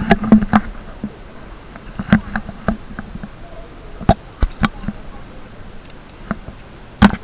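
Irregular crunching clicks of footsteps on shell-strewn sand.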